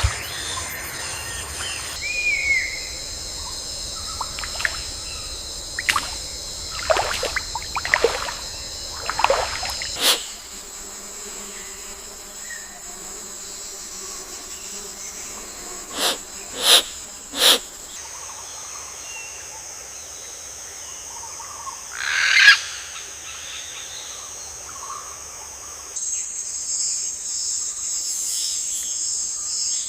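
Tropical forest ambience: a steady, high-pitched insect drone with scattered bird calls, including a few sharp, loud calls a little past the middle and another about three-quarters through. The drone changes abruptly several times.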